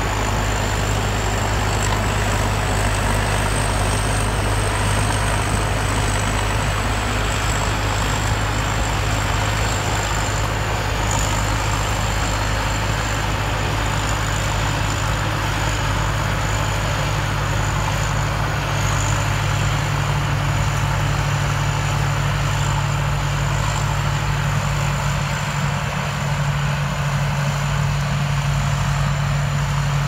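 Sitcharoen rice combine harvester at work in the field: its diesel engine and threshing machinery run in a steady drone, with a thin steady high whine above it. The engine note steps up slightly about 25 seconds in.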